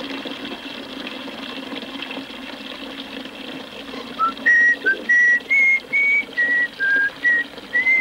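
Liquid running steadily from taps, then from about four seconds in a louder whistled tune of about ten short notes at shifting pitches.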